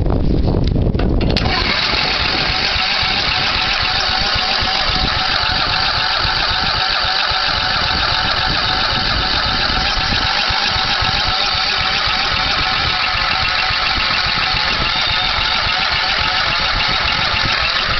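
The 11 hp Yard Boss mower's engine being cranked over steadily by its starter without catching, starting abruptly about a second and a half in: a cold engine that won't fire.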